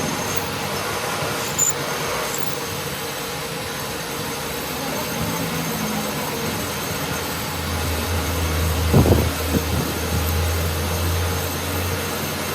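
Workshop machinery running steadily. A low hum comes in a little past halfway, and a few sharp knocks follow soon after.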